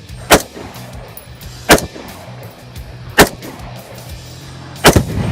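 Four gunshots about a second and a half apart, each a sharp crack, over background music.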